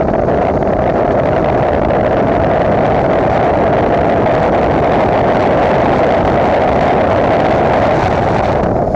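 Motorcycle engine running hard at steady high revs at speed, mixed with heavy wind rush on the onboard microphone. Near the end the upper hiss drops away.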